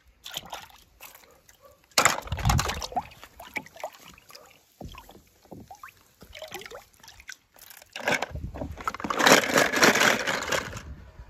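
Water splashing and sloshing in irregular bursts, loudest about two seconds in and again for a few seconds near the end.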